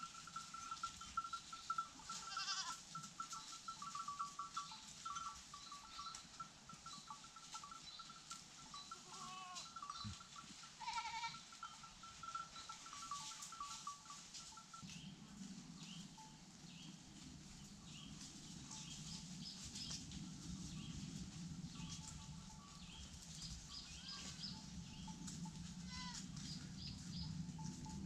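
Birds calling outdoors: a long pulsing trill near 1 kHz for the first half, with short repeated high chirps throughout. A low hum comes in about halfway.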